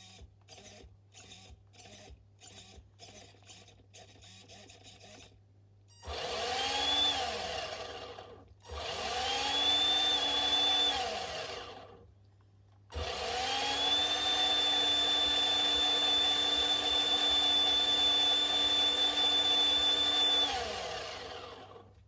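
HPI E-Firestorm RC truck's electric motor and drivetrain run up on the bench: first a rapid run of short buzzes, then three spin-ups with a steady whine that climbs in pitch, holds and winds down, the last held for about seven seconds.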